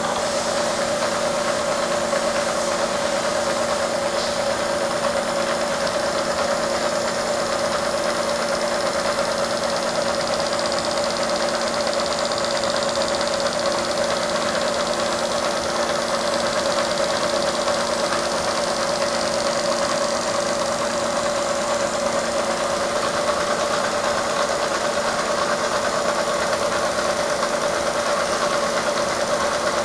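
Bridgeport milling machine running with its cutter head face-milling a thin plastic sheet held on a vacuum chuck. It makes a steady machining hum with a constant mid-pitched tone throughout.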